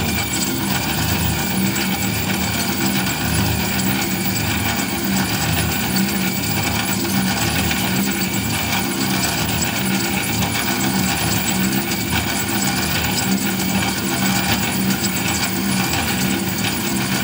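FDM 3D printer printing: its stepper motors buzz and whir in shifting tones as the print head moves back and forth.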